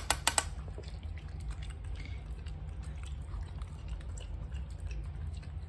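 Small dogs eating kibble mixed with wet food from bowls: soft, irregular chewing and crunching ticks. A few sharp clicks right at the start, from a spoon knocking against a bowl, over a steady low background hum.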